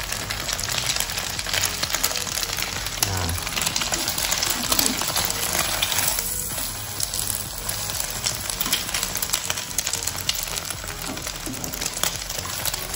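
Beaten egg frying in hot oil in a nonstick pan, with a steady sizzle full of small crackles. A wooden spatula pushes the egg around in the pan about halfway through.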